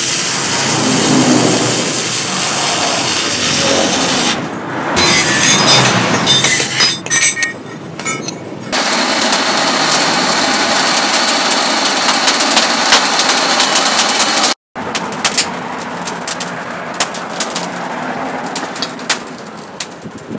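Metalworking power-tool noise on steel, a steady loud hiss of grinding or welding, broken by abrupt cuts into several short segments with scattered clicks and knocks.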